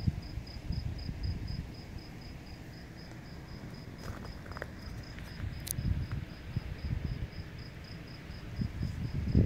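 A cricket chirping steadily in a high, even pulse of about five chirps a second, over a low, fluctuating rumble.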